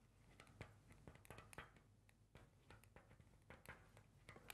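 Near silence, with faint scattered ticks of a marker tip tapping on a glass lightboard as writing goes on.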